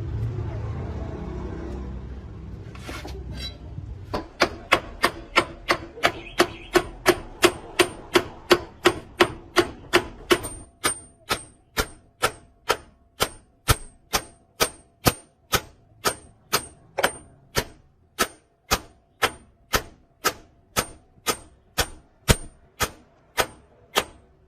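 A hammer striking metal in a steady, even run of blows, about two to three a second, each with a short metallic ring. The blows start a few seconds in, after a low rumble.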